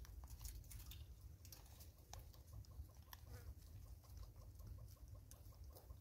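Faint clicks and crunches of a vervet monkey picking up and chewing dried maize kernels, with a quick run of soft ticks, about five a second, in the second half, over a low steady hum.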